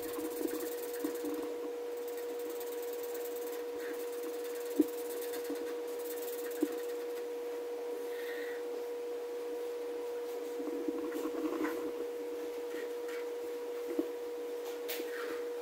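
Felt-tip marker scratching and rubbing on paper on a wooden tabletop as a drawing is inked and filled in, with a few light taps. A steady tone hums underneath.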